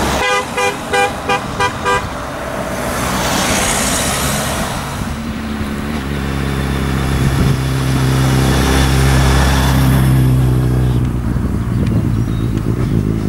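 A vehicle horn honking about six quick times, then a vehicle rushing past, then a motorcycle engine running at a steady pitch as a race motorcycle with sidecar approaches, fading near the end.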